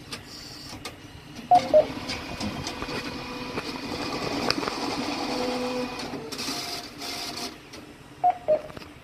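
Post office ATM counting a stack of inserted banknotes: the bill-counting mechanism whirs and rattles for about six seconds. It is framed by two short beeps before it starts and two more after it stops.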